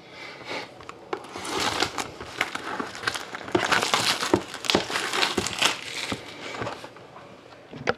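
Plastic shrink wrap on a trading card box crinkling as it is cut and pulled off, a dense run of sharp crackles that builds about a second in and dies away near the end.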